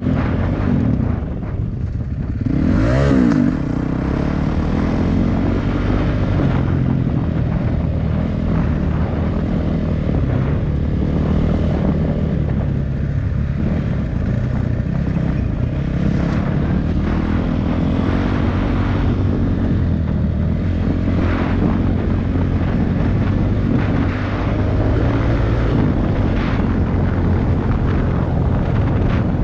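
1981 Kawasaki KE175's single-cylinder two-stroke engine running steadily, with the revs rising and falling briefly about three seconds in.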